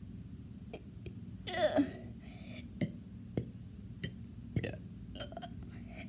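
A person burps once, about one and a half seconds in, the pitch dropping as it goes. A few faint short clicks follow.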